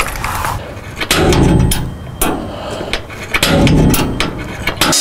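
Irregular knocks and clanks of a metal catalytic converter shield being handled and pushed into place against a car's underbody, with two denser bursts of clatter.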